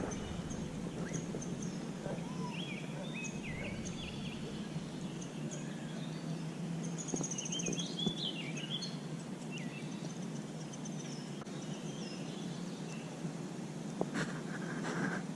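Birds chirping on and off, in short rising and falling calls, over a steady low background hum.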